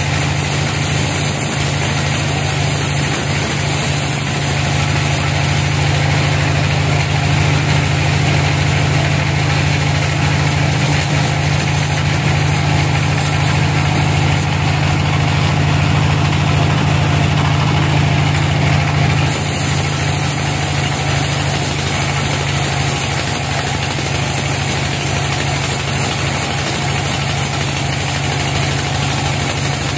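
Band sawmill running steadily as its blade saws a slab off a log: a loud, even machine hum with no pauses.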